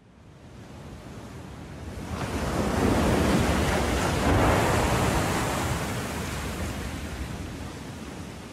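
Sea waves surging: a rush of surf that swells up over the first few seconds and slowly fades away.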